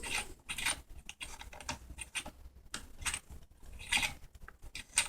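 Irregular short clicks and scrapes of metal on metal as a muzzle shroud is turned by hand onto the left-hand thread of a Manticore Arms muzzle brake on an AK rifle.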